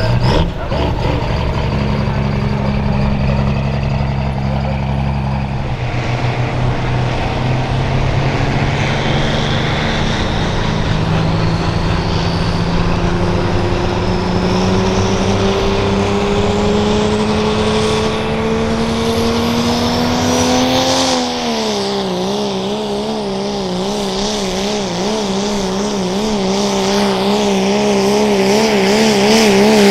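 Diesel pickup truck engine at full throttle pulling a sled. Its pitch climbs steadily for several seconds, drops suddenly about two-thirds of the way through, then wobbles rapidly up and down to the end.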